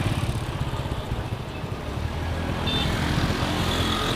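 Small Honda step-through motorcycle's four-stroke engine running at low speed with road noise as the bike slows to pull over.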